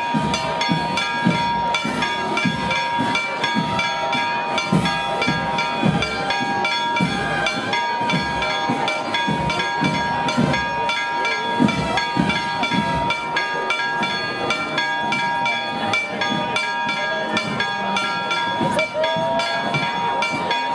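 Pasacalles street-band music: wind instruments play a tune over a steady drumbeat about two to three beats a second, with a crowd's chatter underneath.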